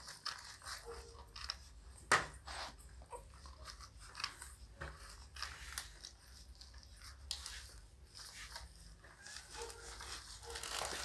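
Newborn pit bull puppies nursing at their mother: soft irregular smacking and rustling, with one sharper knock about two seconds in.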